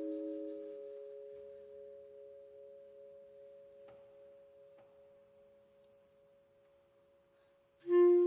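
Vibraphone notes left ringing after an ensemble chord cuts off, a few pure tones slowly dying away over several seconds until they are barely audible. A loud new chord comes in near the end.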